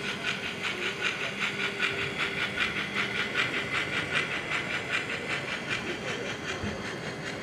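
Model steam locomotive's steam sound: rapid, even chuffing of about four beats a second with hissing, over a faint low steady hum.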